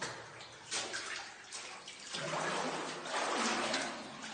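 Feet wading through shallow water, splashing and sloshing, with a couple of short splashes early on and louder sloshing through the second half.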